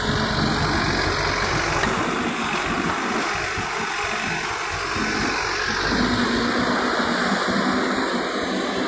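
Shantui SE90-9 excavator's diesel engine running steadily while the excavator swings and digs. A low, even hum comes through more clearly after about six seconds.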